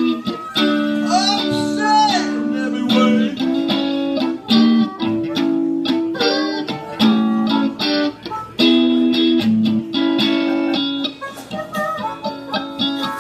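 Live blues band: a harmonica played through a vocal microphone, holding notes and bending them in pitch, over electric guitar and drums.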